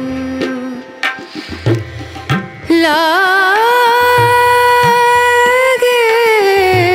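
Background music with hand-drum beats and a long, wavering melody note held from about three seconds in.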